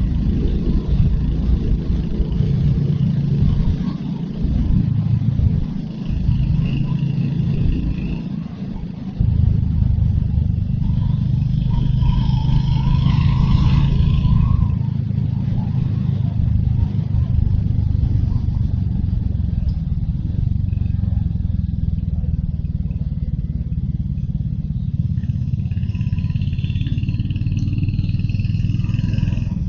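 Royal Enfield Hunter 350's single-cylinder engine running under way, the throttle easing off and picking up over the first several seconds, then pulling steadily from about nine seconds in.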